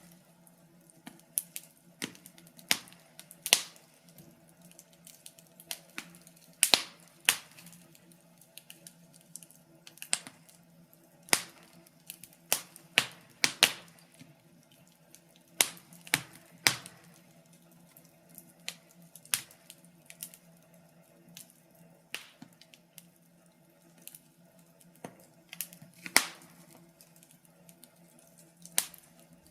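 Wood fire crackling in a fireplace: irregular sharp pops and snaps, a few of them much louder, over a faint steady low hum.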